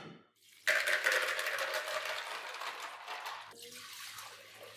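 Margarita mix pouring from a large bowl into a glass measuring jug: a steady splashing pour that starts sharply about a second in and tapers off over the last second or so.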